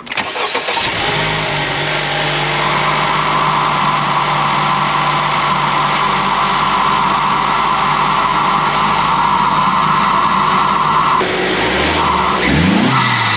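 Honda Civic Type R FL5's turbocharged 2.0-litre four-cylinder under load with a PRL high-volume intake: a steady engine drone under a loud intake whoosh that builds over the first few seconds. About eleven seconds in the whoosh cuts off and the engine note drops and swings up and down as the throttle changes.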